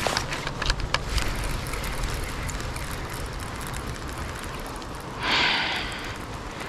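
Wind and river noise on the microphone, with a few irregular clicks from the rod and spinning reel being handled in the first second. About five seconds in comes a short, louder rush of hiss.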